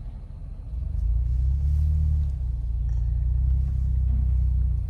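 Jeep Wrangler driving along a dirt trail, heard from inside the cabin as a low engine and road rumble that grows louder about a second in and then holds steady.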